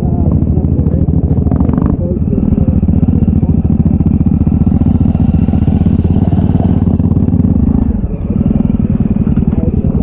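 Motorcycle engine running under way on a muddy dirt track, heard from on the bike as a dense, steady low pulsing; it dips briefly about eight seconds in before picking up again.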